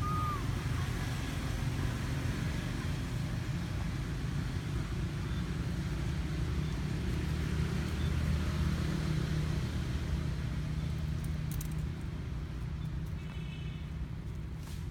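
Steady low rumble of outdoor background noise, with a brief short chirp right at the start and a few faint clicks near the end.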